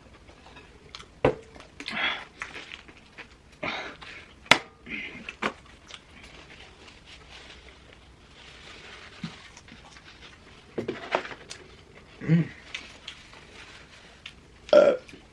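Eating noises: chewing and mouth smacks, with scattered sharp clicks and short rustles.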